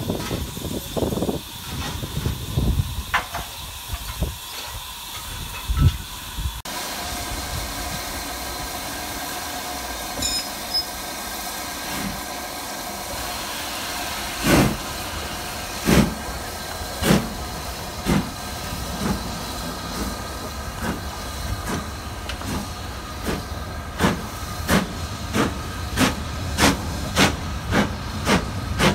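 LNER Thompson Class B1 steam locomotive No. 1264 pulling away: over a steady hiss of steam, exhaust chuffs begin about halfway in, well over a second apart, and quicken to nearly two a second. In the first few seconds carriages rumble and knock past.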